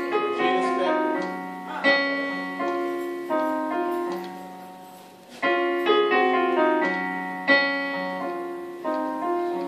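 Solo piano playing a slow phrase of struck chords and notes, each left to ring and fade; the phrase starts over about halfway through.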